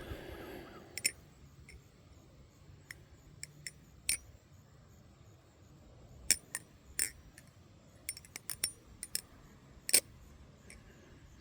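New Era Sunshine balisong (butterfly knife) being flipped: sharp metallic clicks and clacks of the handles swinging around and striking, irregularly spaced, with a quick run of them near the end and the loudest clack just before.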